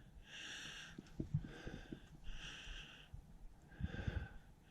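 A man breathing heavily close to the microphone, about one breath a second, with soft low knocks and rustles between breaths.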